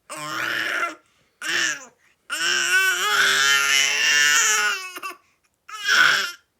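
Baby vocalizing loudly in four bursts of crying and babbling, the third one long and drawn out, about two and a half seconds.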